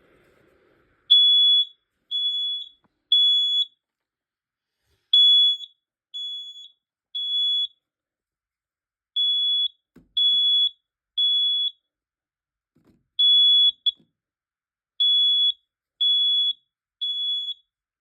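Smoke alarm sounding its alarm signal, set off by aerosol test smoke. It gives high-pitched beeps in groups of three with a short pause between groups, the standard temporal-three evacuation pattern, starting about a second in.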